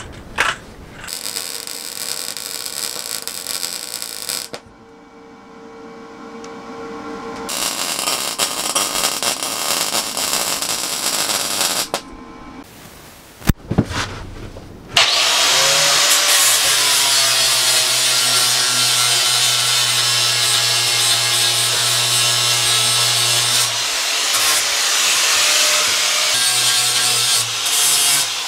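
Angle grinder starting up about halfway through and grinding welds on steel square tubing: a steady motor whine under a harsh rasp of disc on metal, easing off briefly twice near the end. Before that, two stretches of crackling hiss from MIG welding the tubing.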